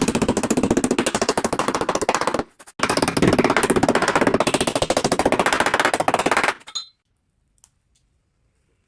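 Pneumatic tool hammering in rapid, even blows, in two bursts with a short pause between; it stops about seven seconds in.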